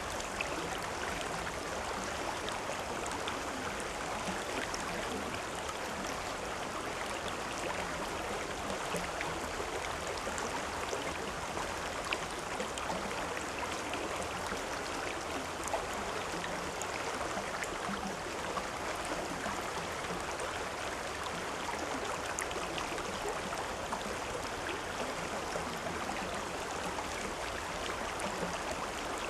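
A river or stream flowing, a steady rush of water with small splashes and gurgles throughout.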